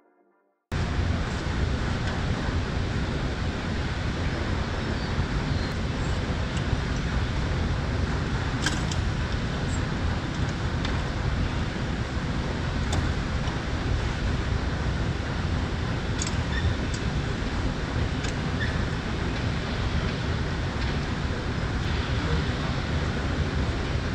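Steady rushing background noise of a working hangar, heaviest in the low rumble, starting suddenly under a second in, with a few light clicks now and then from work on the engine and hoist.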